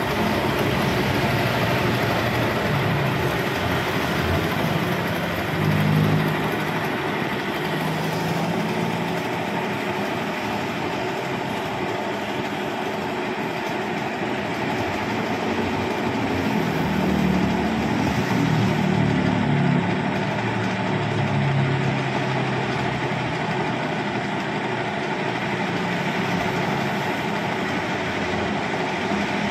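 Homemade carpet spin dryer made from a used plastic drum, spinning at speed: a steady whirring rush with a low hum that wavers in strength as it runs.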